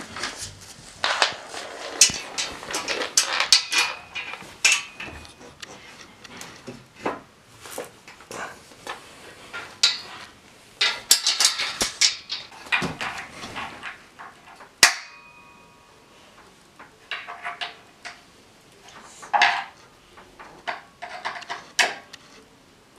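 Irregular clatter, clicks and knocks as a metal desk frame, screws and a hand screwdriver are handled while a wooden panel is fastened to the frame. One sharp metallic clink about 15 seconds in rings briefly, and the handling noise thins out to occasional scrapes after that.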